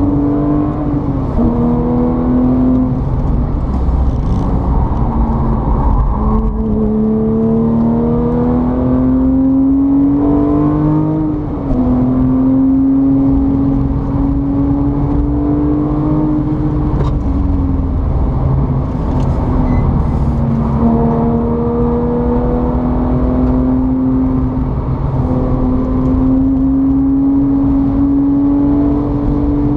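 A motor vehicle's engine running steadily, its pitch climbing slowly and then dropping sharply every few seconds.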